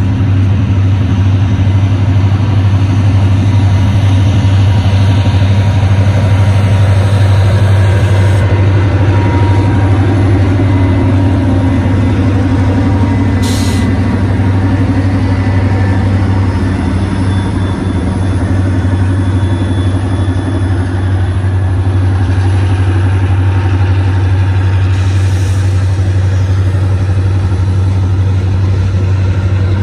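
EMD diesel-electric freight locomotives passing close with their engines working under load, a loud steady low drone.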